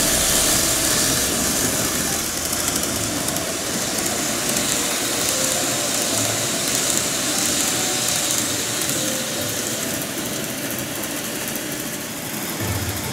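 TOMIX N-gauge 485-series model train running on layout track: a steady running noise of its motor and wheels on the rails.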